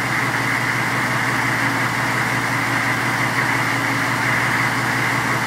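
Turbocharged GM diesel V8 idling steadily, heard from inside the cab, with the engine still warming up from cold in below-freezing air.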